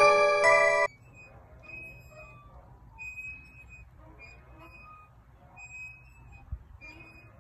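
Chiming mallet-percussion music in a glockenspiel-like timbre cuts off suddenly about a second in. Faint, short high tones follow, recurring every second or so.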